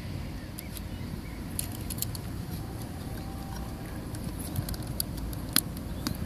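Small metal clicks and taps from handling a home-built 6x9 medium format roll-film camera as its hinged back is swung shut and latched, with one sharper click near the end. A steady low rumble runs underneath.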